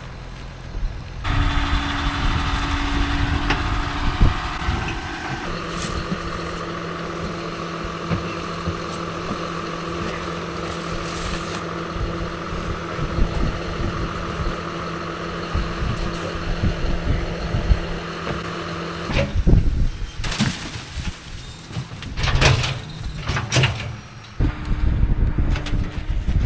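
A tractor engine running steadily, its note stepping to a new pitch a few times. Near the end it is broken up by several seconds of knocks and rumbling before it settles back to a steady run.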